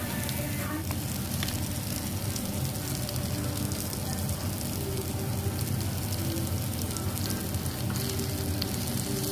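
Pork belly, pork neck and sausages sizzling on a round Korean barbecue grill plate, a steady crackle of frying fat over a low hum.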